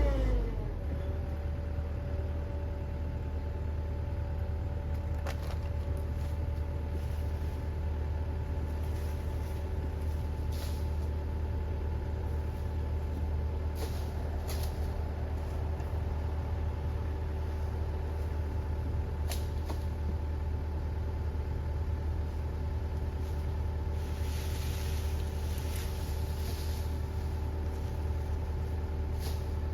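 Case 445 skid steer's diesel engine dropping from higher revs to a steady idle in the first second, then idling evenly, with a few faint clicks and knocks over it.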